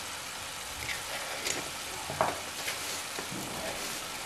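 Grated onion and tomato paste frying in oil in a pan, sizzling steadily, with a few light knocks about halfway through.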